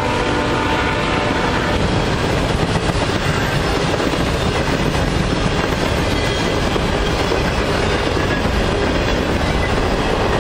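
Freight train tank cars and covered hoppers rolling past close by: a loud, steady rolling rumble of steel wheels on the rails. A faint steady tone lies over it for the first couple of seconds.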